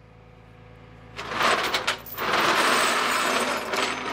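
Steel tie-down chain dragged and scraped across the tow truck's metal flatbed deck: a short scrape about a second in, then a longer continuous scrape over the last two seconds, over a steady low engine hum.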